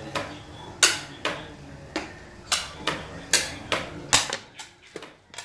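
Xiangqi pieces clacking: about ten sharp, hard clicks at irregular half-second spacing, stopping near the end.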